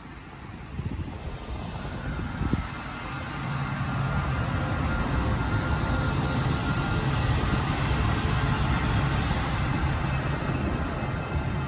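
Renfe Alvia series 130 train passing slowly: wheels rolling on the rails, with a steady hum and faint whine from the power car that grows louder over the first few seconds as the power car draws near. One sharp clack about two and a half seconds in.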